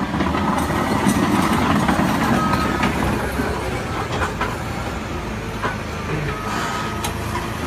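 Heavy construction machinery running with a low engine rumble, while a reversing alarm beeps intermittently. Several sharp knocks and clanks sound over it.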